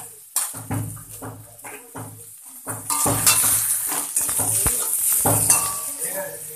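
A steel spatula scraping and stirring diced papaya and potato in a metal kadai, with the sizzle of frying. It gets louder about three seconds in. Before that, low intermittent voice-like sounds are heard.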